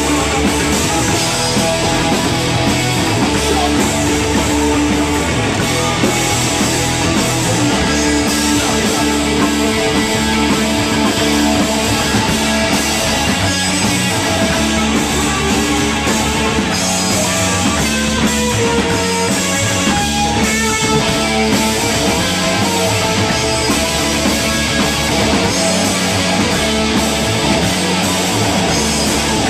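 Live rock band playing a loud instrumental passage: electric guitar, bass guitar and drum kit, with no vocals.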